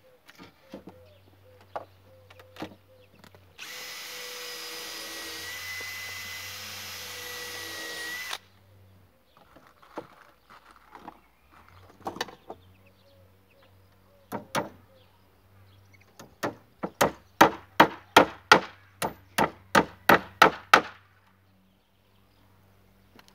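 Power drill running for about five seconds on a wooden coop frame, its whine rising slightly just before it stops. Later comes a quick run of about fourteen hammer blows on wood, roughly three a second, with a few single knocks of timber being handled around them.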